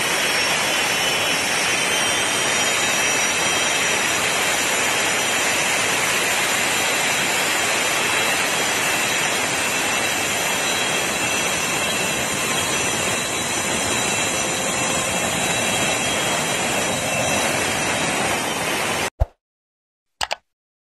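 Aircraft turbine engines running close by: a loud, steady rush with a high whine that rises slightly in pitch over the first couple of seconds. It cuts off suddenly near the end, followed by two short clicks.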